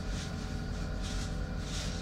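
Inside the cab of a Citadis 302 tram standing at a stop: a steady low hum with a few steady tones from its onboard equipment, and short soft hisses now and then.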